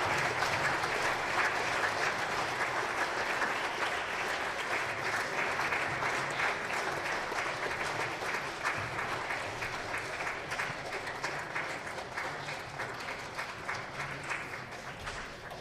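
Audience applauding, a dense patter of many hands clapping that gradually fades away.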